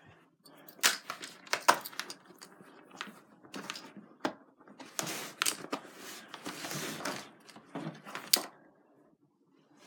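Irregular small clicks, taps and rustling from objects being handled, with a longer rustle about two-thirds of the way in.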